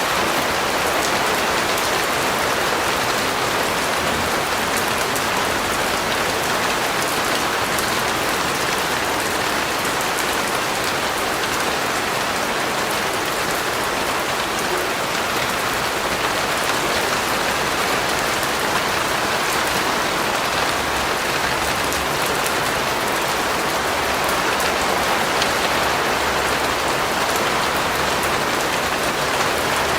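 Steady heavy rain falling on a surface, an even hiss with fine drop patter throughout.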